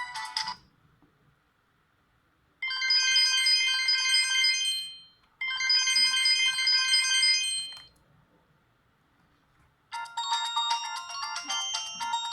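Ringtones of a Philips 760 mobile phone: one tune ends, then after a short pause a brief, bright melody plays twice over, and after another pause a different, busier ringtone begins about ten seconds in.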